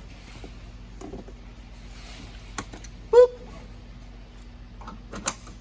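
A few small sharp clicks of a handcuff key being worked in a seatbelt buckle lock, the loudest pair near the end. About three seconds in, a man says 'boop'.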